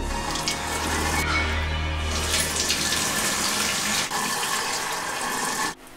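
Bathroom mixer tap running into a sink basin, water splashing steadily, until it cuts off suddenly near the end. A low droning film score sits underneath.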